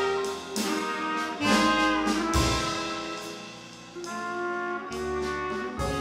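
Live jazz combo playing: a trumpet holds melody notes over piano chords and upright bass notes.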